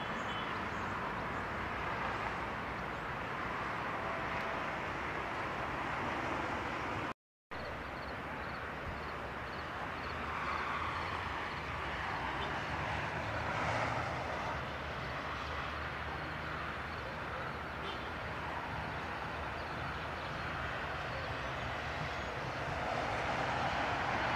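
Trains rolling past on electrified track: steady wheel-on-rail running noise with a low hum, first from freight wagons, then, after a short break in the sound about seven seconds in, from a Metrorail electric multiple unit. Faint evenly spaced ticks come through just after the break.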